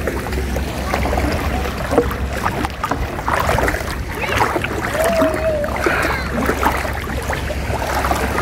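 Water splashing and sloshing as people wade through waist-deep seawater, irregular splashes over a steady low rumble.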